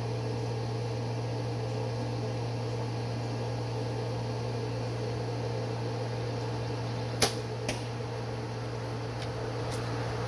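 A bow being shot about seven seconds in: a sharp snap of the string on release, then a fainter knock about half a second later as the arrow hits the target. A steady low hum runs underneath.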